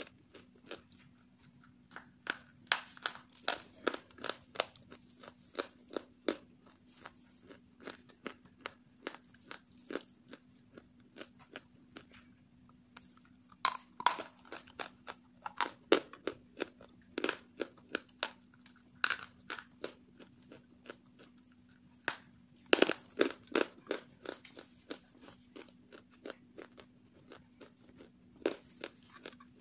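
Hard, half-roasted grey clay crunching as it is bitten and chewed: irregular sharp cracks, with louder clusters around the middle and about three-quarters of the way through.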